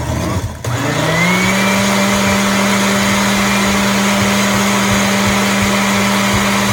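Blender motor spinning up about a second in, then running at a steady high speed as it blends snow and watermelon into a slushy smoothie.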